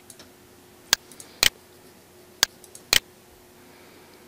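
Computer mouse clicks: sharp single clicks about every half second to a second, some in quick doubles, made while choosing an item from a drop-down list and pressing a dialog button. A faint steady hum lies underneath.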